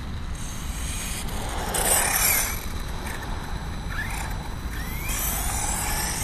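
Electric brushless 1/8-scale RC truggy (VRX-1) running on asphalt: bursts of high-pitched motor whine and tyre hiss as it accelerates, loudest about two seconds in, with short rising whines near the end, over a steady low rumble.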